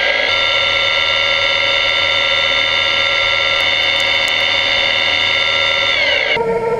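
Steady multi-tone whine of a 5-axis mill-turn machine turning a steel crankshaft blank, its pitch held level while the cut runs. About six seconds in the whine glides down in pitch and then breaks off.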